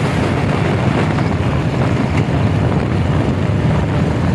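Royal Enfield Bullet motorcycle's single-cylinder engine running steadily while cruising on the road, mixed with wind rushing over the microphone.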